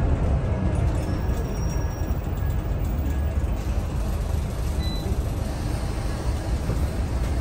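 Scania L94UB city bus heard from inside its cabin while driving: a steady low engine and road rumble.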